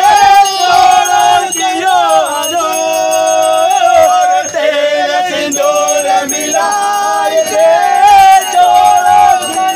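Devotional song to Bheru ji (Bhairav): a man singing long, held melodic lines over music with jingling bell or rattle percussion.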